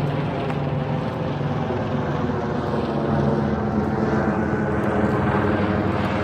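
A steady, low engine drone, a constant hum that holds without a break.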